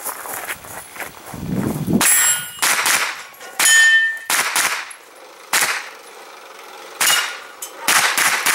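Pistol-caliber carbine firing an irregular string of about ten shots, some close together and some a second or more apart, with struck steel targets clanging.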